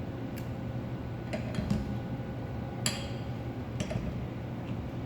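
A few light metallic clinks and taps from metal printer parts being handled while the motor is fitted onto its keyed shaft. The sharpest clink, about three seconds in, rings briefly. A steady low hum runs underneath.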